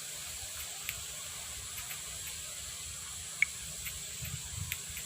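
Steady faint hiss of room tone and microphone noise, with a few small clicks scattered through it; the sharpest click comes about three and a half seconds in.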